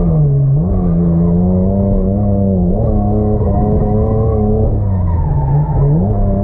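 Nissan R31 Skyline's RB30E straight-six revving up and dropping back several times while drifting, heard muffled from inside the cabin, with tyres skidding under it.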